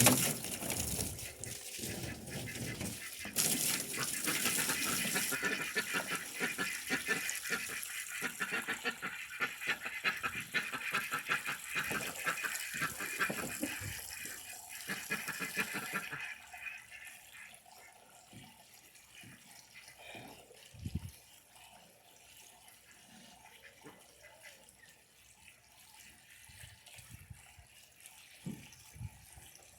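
Water running and splashing for about sixteen seconds, then cutting off, followed by a few faint knocks.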